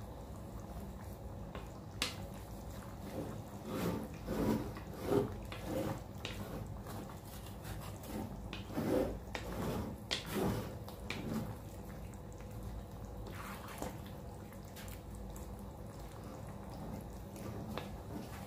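Wooden spatula stirring thick, simmering pork dinuguan in a metal wok: wet, squelching strokes through the sauce in two runs, a few seconds in and again about halfway through, with an occasional sharp knock of the spatula against the pan, over a steady background hum.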